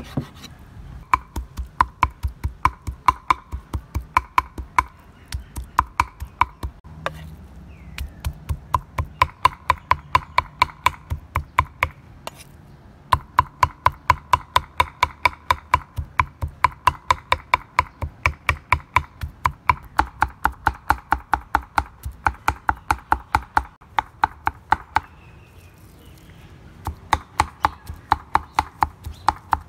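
A cleaver mincing raw beef on a thick round wooden chopping board: quick, even chops several strokes a second, in long runs with short pauses, the longest a little before the end.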